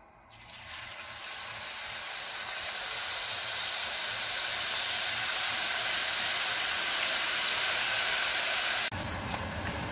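Shredded potato strips frying in hot oil in a pan: the sizzle starts about half a second in, grows louder over the next few seconds into a steady hiss, and breaks off suddenly about a second before the end.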